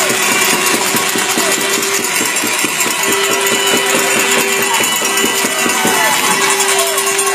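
Hockey arena crowd cheering and clapping, with a steady held tone, like a horn, sounding three times in the second half.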